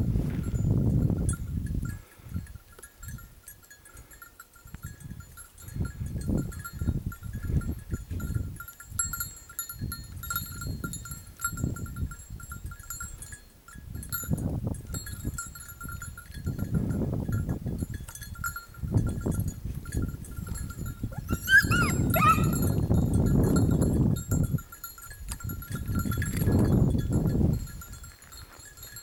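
Small bells tinkling faintly and continuously in the distance, over repeated low rumbling gusts of wind on the microphone. About three quarters of the way through comes one short, high call that rises and falls.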